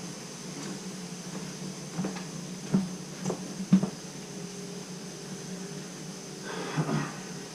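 Navien tankless water heater running with a steady hum, a few sharp knocks and clicks about two to four seconds in, and a brief scuffling rattle near the end.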